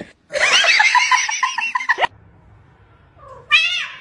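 A cat meowing once near the end: one pitched call that rises and falls. Before it comes a louder, high cry that warbles rapidly for about two seconds and cuts off suddenly.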